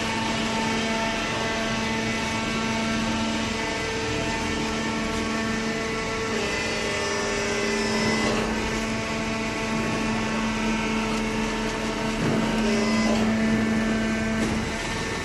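Horizontal cardboard baler's hydraulic power unit running with a steady hum, swelling a little louder around halfway and again near the end.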